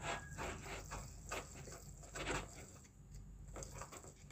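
Hand-cranked plastic chopper mincing raw boneless chicken: irregular clicking and scraping from the blades as the crank is turned, with the louder clicks about a second apart.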